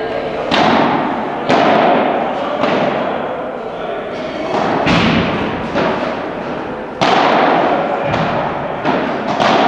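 Padel rally: a padel ball being struck by rackets and bouncing on the court, about nine sharp hits at an uneven pace, each trailing off in a long echo of a large hall.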